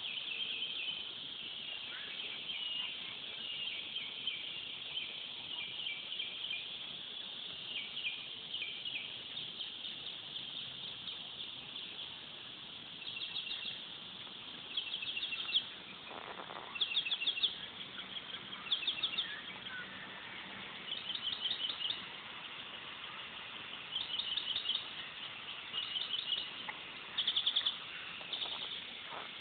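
High-pitched chirping: a steady chorus with short, rapidly pulsed trills that repeat every second or two and grow more frequent in the second half. A brief lower rush of noise comes about halfway through.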